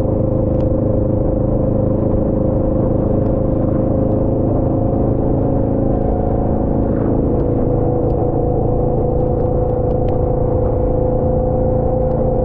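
Motor vehicle running at a steady speed during a ride: a low rumble with a steady whine held at one pitch, and scattered light ticks.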